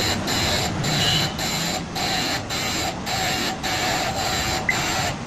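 Grinding machine working on a press die as it is resharpened: a steady grinding noise with high tones that dips briefly at an even rhythm, about twice a second.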